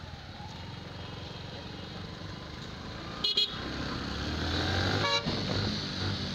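Slow road traffic with vehicle engines running steadily. Two short horn beeps sound about three and five seconds in, and the engine rumble grows louder after the first beep.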